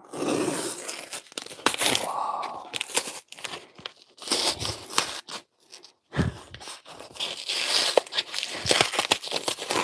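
Packing tape being peeled and torn by hand off a cardboard shipping box, in several rough tearing pulls with short pauses between them. The tape is strong and hard to tear.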